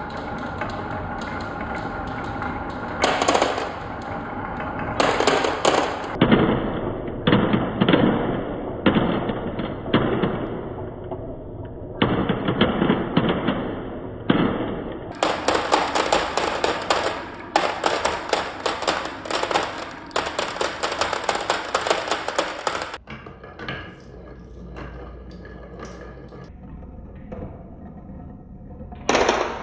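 Marbles rolling and clattering down a wooden and plastic toy marble run: dense, rapid clicking and knocking in several runs that start and stop abruptly.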